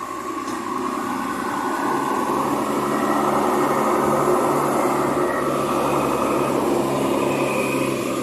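Bus engine running steadily, growing louder over the first few seconds as the bus approaches, then holding level.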